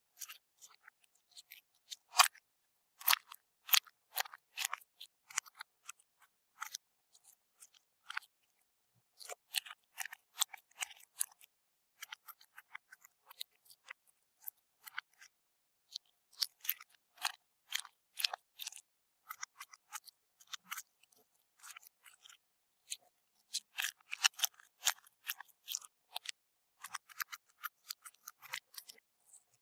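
Bead-filled crunchy slime being squeezed and pressed, giving irregular runs of small crisp crackling clicks with short pauses between handfuls.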